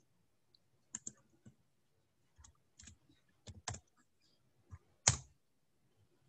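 Computer keyboard keystrokes: a scattered handful of separate taps, with one louder tap about five seconds in.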